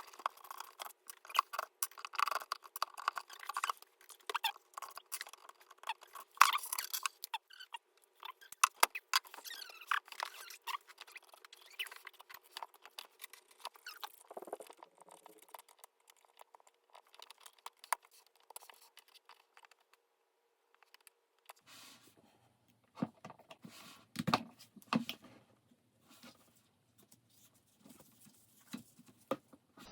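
Irregular small clicks, taps and scratches of hands and a tool working on a Milwaukee Sawzall's metal housing while it is opened up. A few duller knocks come near the end.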